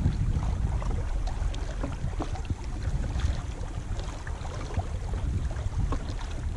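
Wind rumbling on the microphone, with small uneven splashes and ticks of water lapping against an inflatable pontoon boat's tubes.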